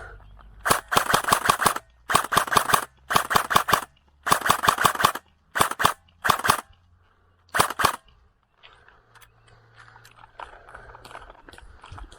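Airsoft gun firing in rapid full-auto bursts: seven short bursts of quick clicking shots over about seven seconds, then the firing stops.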